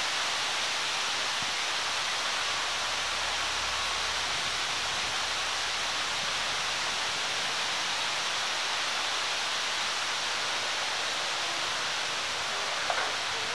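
A steady, even hiss with no distinct events, and a few faint rustles near the end.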